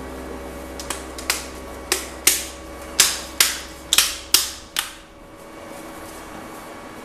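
Plastic snap clips of a Dell Inspiron 15 5000 laptop's display bezel clicking into place as the bezel is pressed down around the screen. About nine sharp clicks come roughly half a second apart through the first five seconds, the later ones louder.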